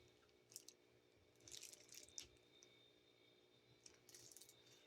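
Near silence with faint scattered clicks and a few soft rustles from a small product package being handled.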